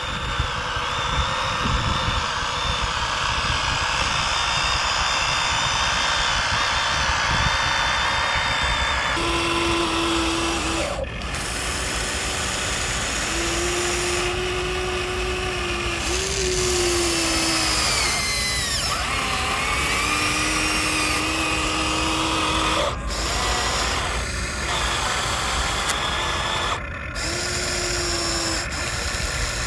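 Electric motors of a Huina remote-control toy excavator whining as the boom, arm and bucket move, over a steady mechanical hum. The whine holds a steady pitch and comes and goes in spells of one to four seconds, from about ten seconds in.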